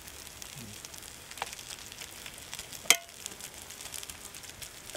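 Eggs, hamburger and hash browns sizzling in a hot cast-iron pan over a low campfire, a steady hiss with faint crackles. A sharp pop or click stands out about three seconds in.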